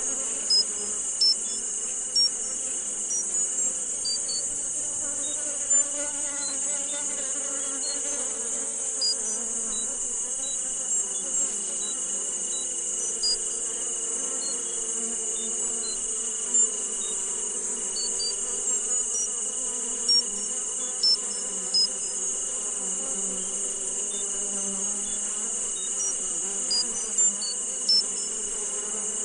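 Tinnitus sound-therapy soundscape: a steady high hiss and a thin, steady high tone, with short, high insect-like chirps scattered irregularly every second or so over a soft low drone.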